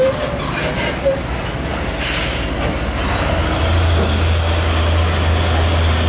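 Heavy trucks in traffic: a short air-brake hiss about two seconds in, then the low, steady diesel drone of a Hino 500 truck pulling up close from about three and a half seconds on.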